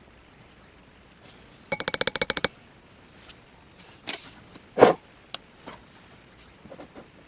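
Clicks and knocks of small containers and tools being handled on a table: a fast rattling run of about a dozen clicks, then a few scattered knocks and scrapes with one louder knock.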